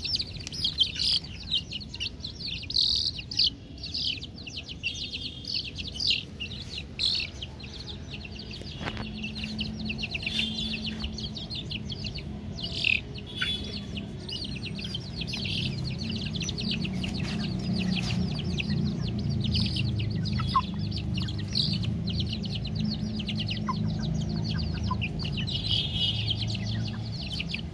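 Newborn chicks peeping: a dense, continuous stream of rapid high-pitched chirps. From about a third of the way in, a steady low sound runs underneath.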